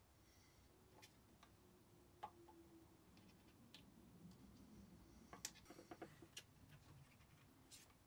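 Near silence: faint room tone with a few scattered light clicks, bunched about five to six and a half seconds in, from a small piece of wire being handled for replacement watch-case lugs.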